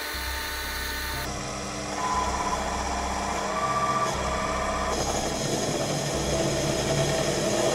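Proxxon PD 250/e mini lathe running, its spindle motor humming steadily. From about two seconds in, a parting tool cuts into a spinning silver steel bar to part off a wheel, adding a louder, wavering whine over the motor.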